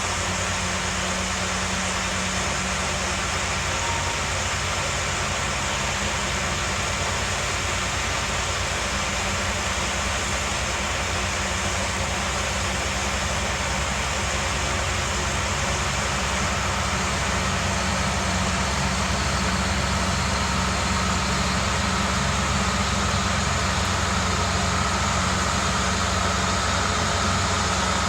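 Steady running drone of a motor vehicle's engine, with a faint whine that grows a little louder in the last few seconds.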